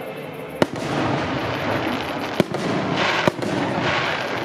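Aerial fireworks going off: three sharp bangs, about half a second in, near two and a half seconds and just after three seconds, over a continuous crackle of bursting shells.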